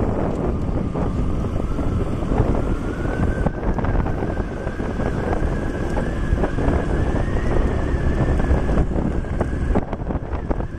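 Wind buffeting the microphone of a moving motorcycle, over the rumble of its engine and road noise, with a thin steady whine that slowly rises in pitch through the first half.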